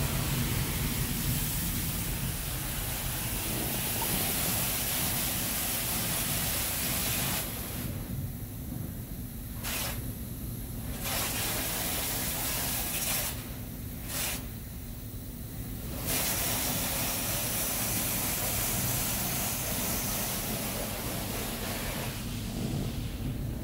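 High-pressure water jets of a Wash World Razor touchless car wash spraying a van, heard from inside the van: a steady hiss over a low rumble. The hiss falls away twice in the middle for a few seconds each, then comes back.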